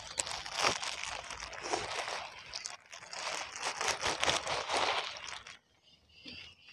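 Plastic bags crinkling and rustling as a large outer shipping bag is pulled open and lifted off the small water-filled fish bags inside; the rustling stops about five and a half seconds in.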